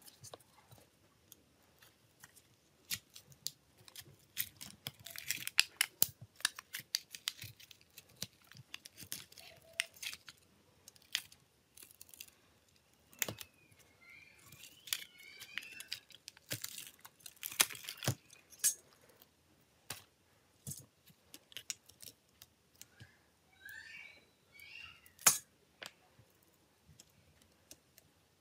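Small tools and tablet parts being handled on a work surface: scattered sharp clicks and taps with some scraping. Two short spells of high squeaky chirping come in, about a third of the way through and again near the end.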